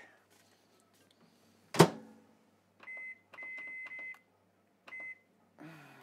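Microwave oven door shut with one sharp, loud knock, followed by the control panel's short high beeps as buttons are pressed: one beep, a quick run of several, then one more.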